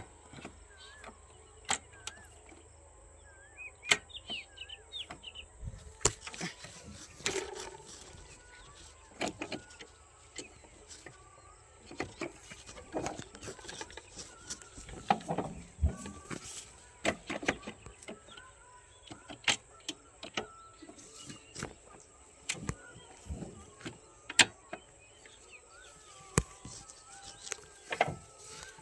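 Irregular sharp clicks and knocks, with faint bird chirps in the background; no engine is running.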